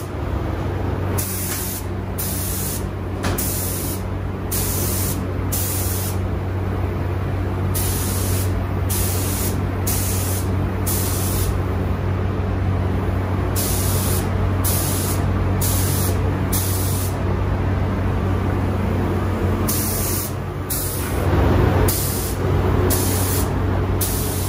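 Compressed-air gravity-feed spray gun hissing in many short bursts, each about half a second to a second long, as paint is sprayed in repeated passes, over a steady low hum.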